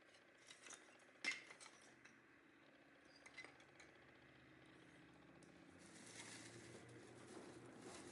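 A few faint clicks and one sharper clink over quiet room tone, with a soft hiss building in the last couple of seconds.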